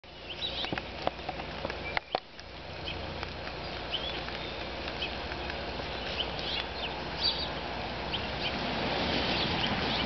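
Wild songbirds chirping with many short, high calls at irregular intervals over steady outdoor background noise. A few sharp clicks, the loudest sounds, come at about one and two seconds in.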